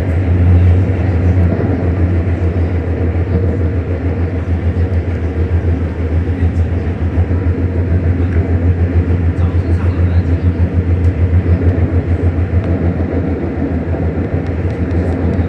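Xiamen Metro Line 1 train running at speed between stations, heard from on board: a steady low rumble with a fast, even pulsing throughout.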